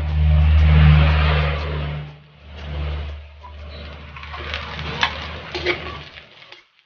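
An engine hum, loudest in the first two seconds and then fading away. It is heard over onions, garlic and ginger sizzling in a wok, with a metal spatula scraping and clicking against the pan.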